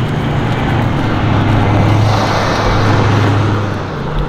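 Road traffic: a motor vehicle going by, a steady low engine hum under the rush of tyre noise that swells a little midway.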